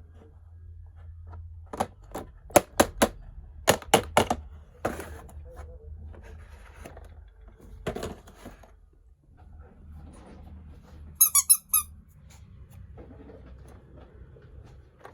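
Miniature toy kitchen pieces being handled: a run of sharp clicks and taps in the first few seconds and a couple of single knocks, then about five short high squeaks a little past the middle, over a low steady hum.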